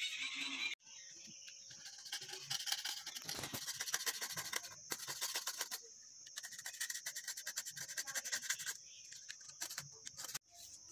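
Match-head material being scraped against the side of a small cardboard matchbox, a quick run of rasping scratch strokes with brief pauses.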